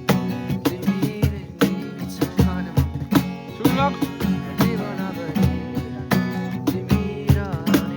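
Background music with a steady beat, led by plucked guitar.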